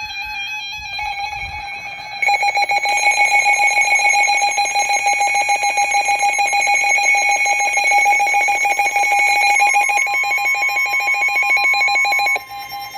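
Emergency Alert System alert tones announcing a severe thunderstorm warning. A steady electronic tone, then about two seconds in a louder, rapidly pulsing alarm tone made of several steady pitches, which cuts off suddenly near the end.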